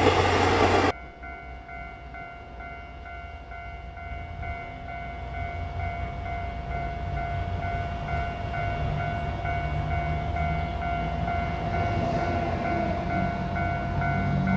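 A louder sound from the previous shot cuts off sharply about a second in. A red diesel railcar then approaches along the track, its engine and running gear growing steadily louder toward the end, under a steady ringing tone.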